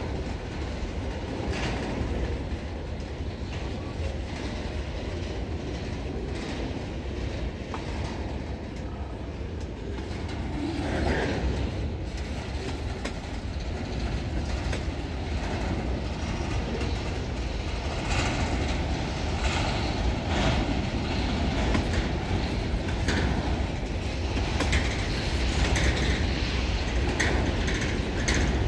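Empty freight hopper wagons rolling past on the track: a steady rumble of steel wheels on rail with repeated clicks over the rail joints, growing somewhat louder about ten seconds in.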